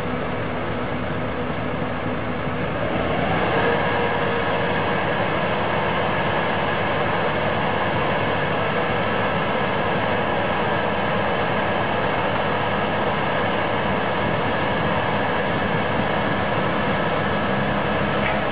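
Steady machinery noise, a mix of hum and hiss with faint steady tones, getting louder about three seconds in and then holding steady.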